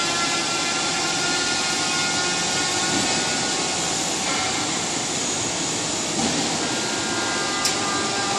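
Vertical automatic stone profile machine running: a steady mechanical hum and hiss with several held whining tones from its row of grinding-head motors. A short sharp click comes near the end.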